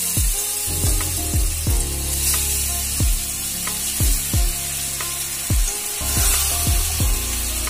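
Mashed, spiced boiled elephant foot yam sizzling in hot oil in a kadai as it is stirred and pressed. Background music with a steady drum beat plays over it.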